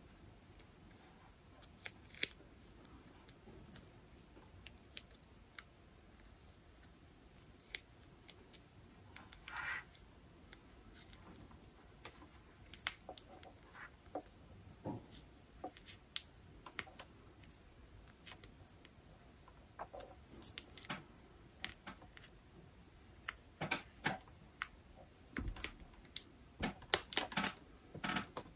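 Faint, scattered clicks and short rustles of hands handling a thin electrical wire and a small crimp connector, with a brief rustle about ten seconds in and a quicker run of clicks near the end.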